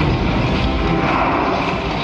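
Film battle-scene soundtrack played in a cinema and recorded from the audience: a loud, dense, steady din of rumbling battle effects with music mixed low underneath.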